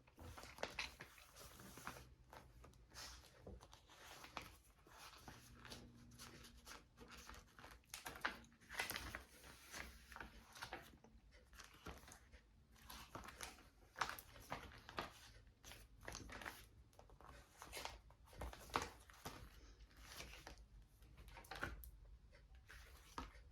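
Faint, irregular paper rustling and crinkling with light clicks: the pages and folds of a handmade paper journal being handled and turned.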